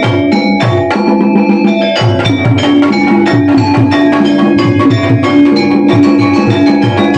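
Sundanese gamelan ensemble playing: struck metal keyed instruments ring out quick runs of notes over a steady pattern of drum strokes.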